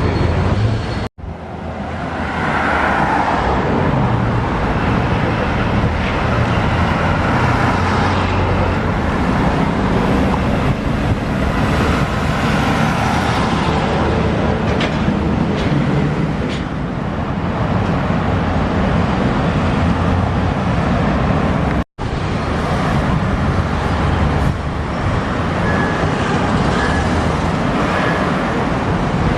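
Road traffic going by: a steady mix of car and heavier vehicle engines and tyre noise. The sound cuts out abruptly twice, about a second in and again after about twenty seconds.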